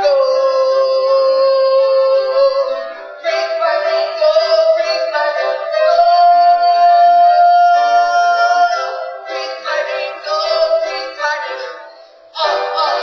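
Recorded song with singing played for a dance routine: a long held sung note opens it and another comes in the middle, with shorter sung and instrumental phrases around them. It sounds thin, with almost no bass. Near the end the music dips and comes back in short bursts.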